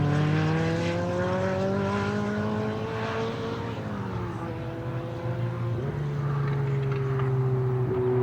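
Ferrari F40's twin-turbo V8 accelerating away, its engine note climbing steadily, then dropping sharply at a gear change about four seconds in before holding fairly steady.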